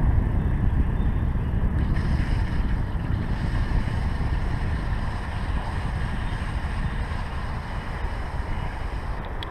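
Wind buffeting the microphone: a steady low rumble that eases slightly toward the end.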